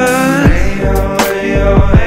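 Soundtrack music: a sustained pitched melody over a beat, with a few sharp drum hits.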